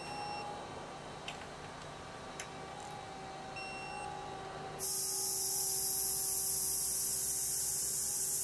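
Digital torque wrench giving two short high beeps, the signal that the set torque has been reached, with a few light clicks. About five seconds in, a steady loud high hiss cuts in suddenly.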